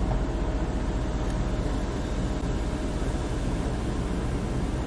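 Electric motor of a Jeep Cherokee's panoramic sunroof shade running steadily as the power sunshade slides open.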